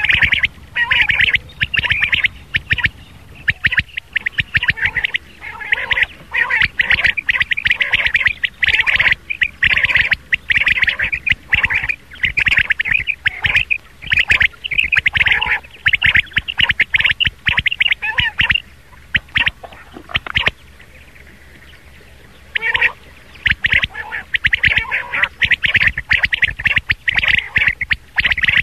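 Rain quail calling, a recorded quail call of the kind hunters play as a lure. Rapid runs of sharp, high notes repeat over and over, broken by a pause of about two seconds about two-thirds of the way through.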